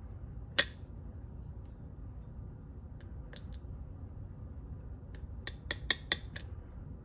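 Sharp metallic clicks from handling a disassembled Mul-T-Lock padlock and its parts: one loud click about half a second in, two faint ticks in the middle, then a quick run of five or six clicks near the end.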